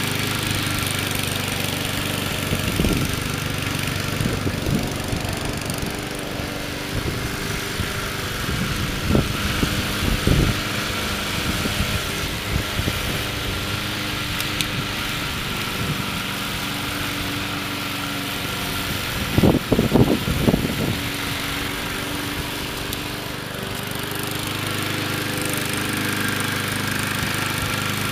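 MTD 20-inch gas walk-behind lawn mower engine running steadily while the mower is driven across grass by remote control, with a few brief louder low bursts, the biggest about twenty seconds in.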